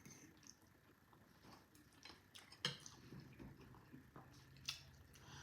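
Near silence broken by a few faint, short, wet mouth clicks and smacks from someone chewing food. The loudest come about two and a half seconds in and again near the end.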